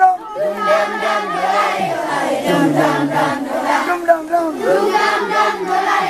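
A crowd of children chanting and singing together in many overlapping voices, loud and lively.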